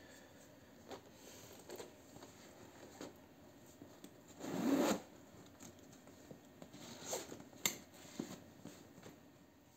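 Metal zipper on a leather toiletry bag zipped shut in one quick pull of about half a second, amid light rubbing and handling of the leather. A sharp click follows near the end.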